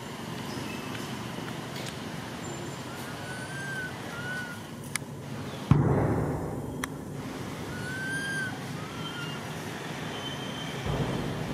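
Steady outdoor background rumble, with short whistled chirps in pairs twice and a sudden burst of low noise about halfway through that fades within a second.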